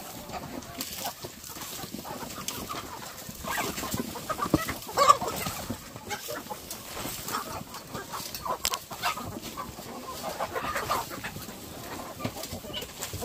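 A flock of chickens clucking, with many short, overlapping calls. A couple of sharp clicks stand out, the loudest about five seconds in.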